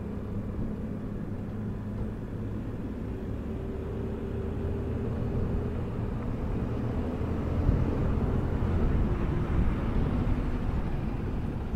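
Motorcycle engine running as the bike speeds up on an uphill road, its note rising slowly, over steady wind and road noise.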